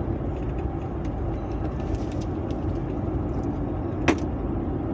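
Steady low rumble of road and engine noise inside a Sprinter cargo van's cab while driving, with one sharp click about four seconds in.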